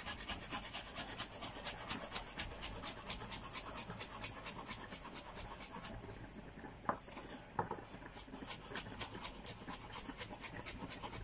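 Kitchen knife rapidly chopping basil leaves on a wooden cutting board: quick, even knocks of the blade on the board, about five a second, with a short break a little past the middle marked by two sharper knocks.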